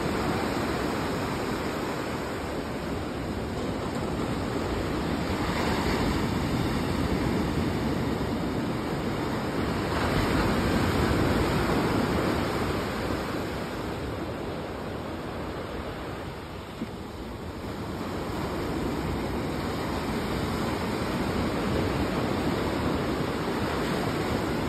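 Ocean surf breaking and washing up a sandy beach, a steady rushing that swells and eases every several seconds as waves come in.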